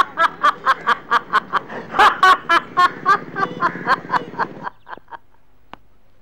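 A man laughing loudly in a long, rapid run of 'ha-ha' bursts, about four to five a second, that cuts off abruptly about four and a half seconds in.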